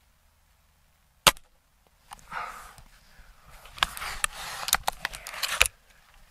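A Gamo Swarm Magnum Gen 3i magnum break-barrel air rifle fires once with a single sharp crack about a second in. Then the barrel is broken open and cocked for the next shot: a few seconds of rasping mechanical noise with several sharp clicks, stopping abruptly near the end.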